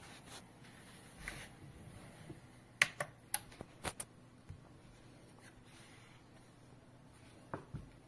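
A quick run of about six sharp clicks as the smart Wi-Fi power strip is switched on, then two softer clicks near the end.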